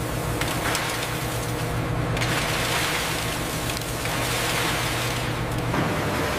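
Shredded scrap metal pouring onto a conveyor belt: a steady clattering hiss over a low machine hum. The hum changes near the end.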